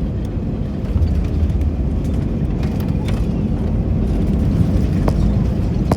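Steady low rumble of a jet airliner's engines and wheels heard from inside the passenger cabin as it rolls along the runway after landing, with a few faint rattles.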